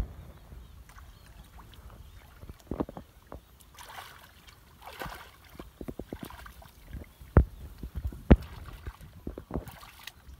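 Muddy shallow water splashing and sloshing as people wade and grope through it by hand, with scattered small splashes and two louder thuds a little under a second apart about three quarters of the way through.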